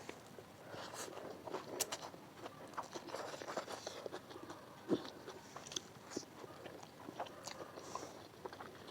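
Close-miked eating sounds: a person chewing and biting food, with irregular wet clicks and crunches, the sharpest crunch about five seconds in.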